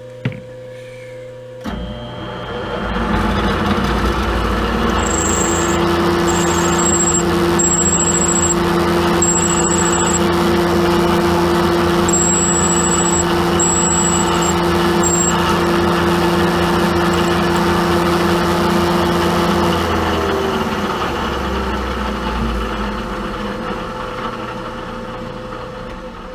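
Milling machine spindle starting up about two seconds in and running steadily while a drill bit is fed through a hole in a small metal part, with WD-40 as cutting fluid. A thin high squeal comes and goes in the first half. The spindle winds down near the end once the drill is through.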